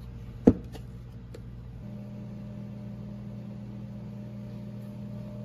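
A steady low machine hum, which shifts in tone a little under two seconds in. A single sharp click sounds about half a second in, followed by a few faint ticks.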